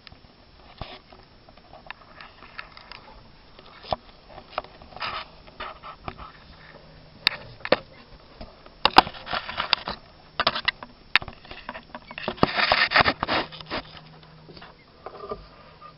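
Close handling noise: irregular scrapes, rustles and sharp clicks as a handheld camera is worked in among the hoses and frame under a tractor cab, loudest in two bursts about midway and toward the end.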